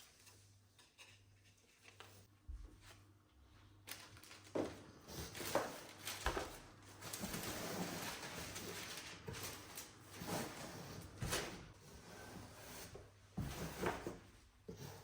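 Handling sounds: scattered knocks and clicks, with a stretch of rustling about halfway through.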